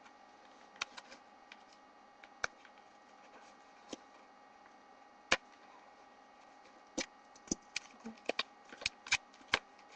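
Scissors snipping a hole through rolled paper, short sharp clicks with paper crinkling: a few scattered snips, then quicker ones near the end.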